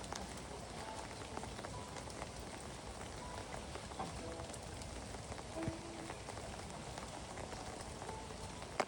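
Steady light rain: an even hiss of rainfall with scattered individual drop ticks.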